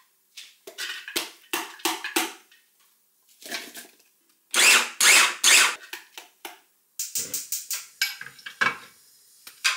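Kitchen clatter of knocks and clicks from utensils and cookware, with three louder scraping rushes about halfway through and a quick run of clicks a little later.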